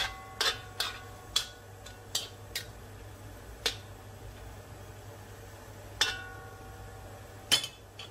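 Metal spoon knocking and scraping against a metal wok while chicken pieces are stirred, each knock leaving a short ringing tone from the wok. The knocks come quickly in the first few seconds, then only now and then.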